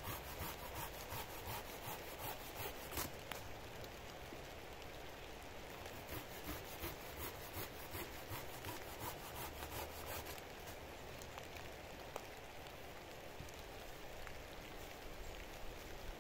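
A wooden stick being cut by hand with a small blade: a quick run of rasping strokes for about the first ten seconds, then stopping. Underneath, a steady hiss of rain.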